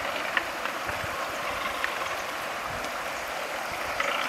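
Shallow river water rushing steadily over stones, with two light clicks about a second and a half apart.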